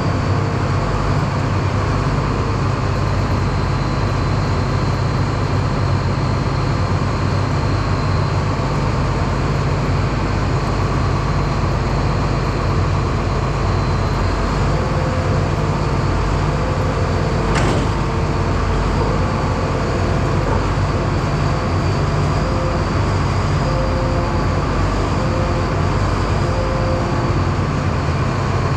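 Massey Ferguson 9690 combine running steadily, with a deep engine hum and a faint steady high whine over it, and a single sharp click about two-thirds of the way through.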